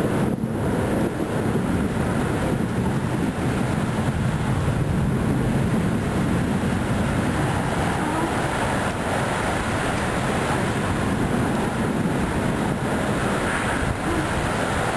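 Steady rushing, rumbling noise of a thunderstorm, with no separate sharp claps.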